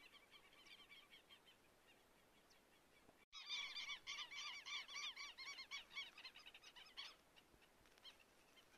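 A flock of birds calling: many quick, short, repeated notes overlapping, faint at first, louder after a brief break about three seconds in, then fading again near the end.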